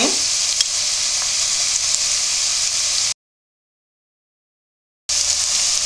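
Diced onion sizzling in hot oil in a frying pan, a steady hiss. About three seconds in it cuts off to dead silence, and it comes back about two seconds later.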